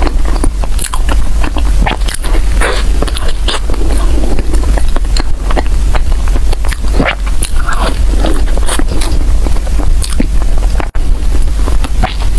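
Close-miked chewing and biting of bread: irregular wet, sticky mouth clicks and smacks, over a steady low hum.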